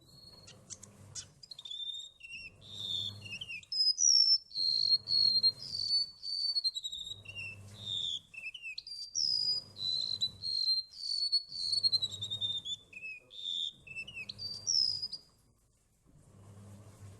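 Golden-bellied gerygone singing: a long run of high, sweet whistled notes, most sliding down in pitch, stringing into phrases one after another, stopping near the end.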